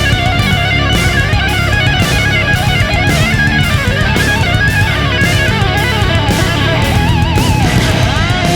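Background rock music: distorted electric guitar with bends and vibrato over a steady drum beat.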